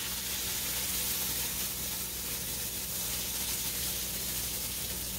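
Flour-dredged cube steaks frying in hot oil in a skillet: a steady sizzle.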